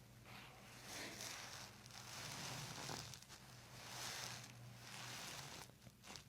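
Faint, repeated rustling about once a second, as hands rub and press over skin and clothing during soft-tissue work on the neck, over a low steady hum.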